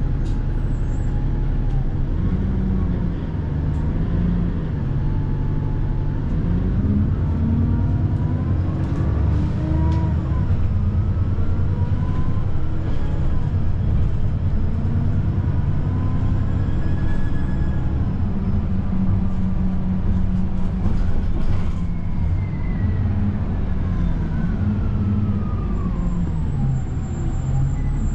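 City bus engine and drivetrain heard from inside the passenger cabin, running steadily. Its pitch rises and falls several times as the bus pulls away and slows, with a falling whine near the end.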